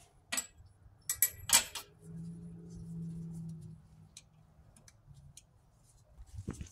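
Sharp clicks and taps of lab glassware being handled on a distillation apparatus, loudest about a second in. A low steady hum follows for under two seconds.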